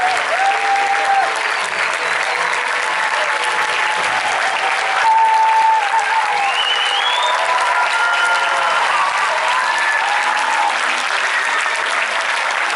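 Audience applauding, with voices cheering and whooping over the clapping.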